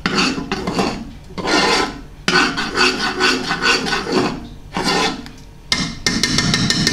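Metal utensil scraping around the inside of a saucepan as thick glaze is stirred, in several separate bursts of strokes with short pauses between them.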